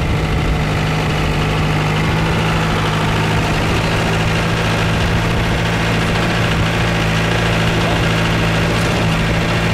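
Engine of an open-cab 4x4 truck running steadily as it drives, heard from inside the cab: a constant low drone under a steady rush of wind and road noise.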